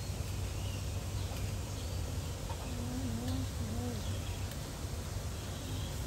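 Steady outdoor background noise with a low hum, with faint distant voices briefly about halfway through and a few faint high chirps.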